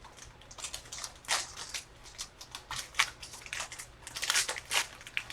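Crinkling and rustling of packaging as a sealed box of trading cards is opened, in irregular scratchy bursts, loudest about three and four seconds in.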